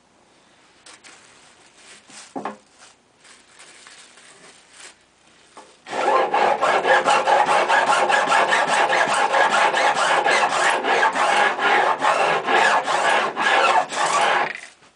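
A block-mounted fret-end file rasping along the fret ends at the fingerboard edge of a Cat's Eye CE-2000 acoustic guitar, trimming the fret edges. It goes in quick back-and-forth strokes, about four a second. The strokes start about six seconds in, after a few light handling clicks, and stop just before the end.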